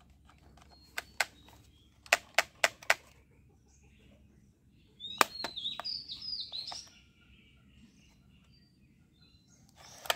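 Sharp plastic clicks from a toy gun being worked: one, then four in quick succession. About five seconds in, a louder click comes, followed by a couple of seconds of bird chirping.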